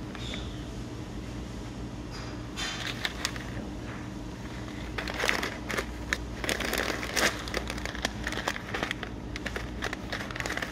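Plastic snack bags of sunflower seeds crinkling in irregular bursts as they are handled and pushed back onto a shelf. The crinkling is busiest in the second half, over a steady low hum.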